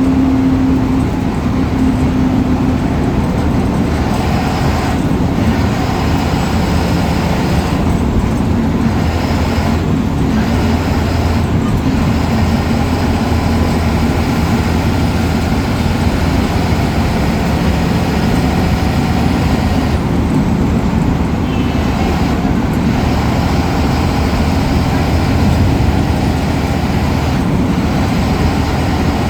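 Ashok Leyland BS4 bus diesel engine running steadily under way, with a faint high turbo whistle heard at times.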